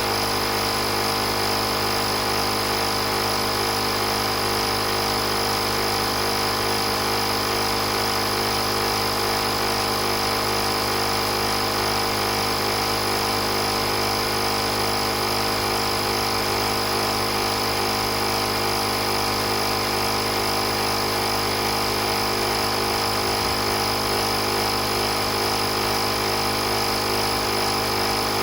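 Portable 12 V air compressor (tyre inflator) running steadily, an even mechanical hum with a constant high whine over it and no change in pitch.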